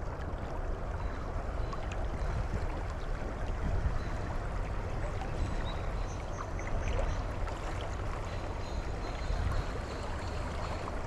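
Fast creek current rushing through riffles, a steady even rush of water.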